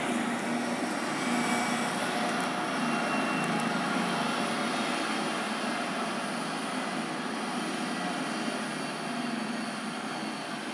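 Medical helicopter running on a rooftop helipad: a steady turbine and rotor noise that slowly gets quieter.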